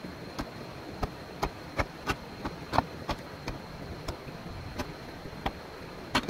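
A series of sharp knocks or taps at an uneven pace, about two a second, loudest near the middle, over a steady background hiss with a faint high whine.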